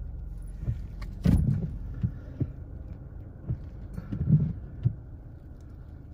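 Steady low hum of a stationary car idling, heard from inside the cabin, with several soft low thumps scattered through it.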